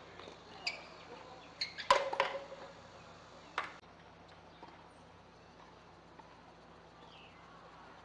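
A tennis rally: a few sharp pops of racket strings striking the ball, the loudest about two seconds in. After about four seconds there are no more strikes and only faint outdoor ambience remains.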